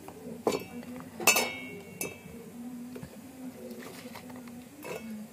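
Chunks of vegetable dropped by hand into a stainless steel mixer-grinder jar: a few clinks, the loudest about a second in with a short metallic ring, over a steady low hum.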